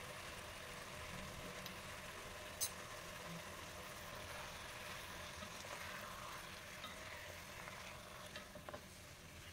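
Spiced raw beef being stirred and mixed in a pot: a faint steady hiss with one sharp click about two and a half seconds in and a few small ticks near the end.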